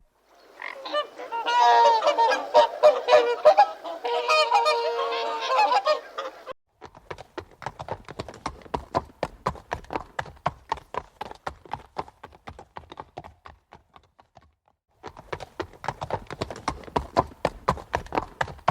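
Geese honking, several overlapping calls, for about the first six seconds. After that comes a long run of sharp ticks, about three a second, broken by a short pause near the end.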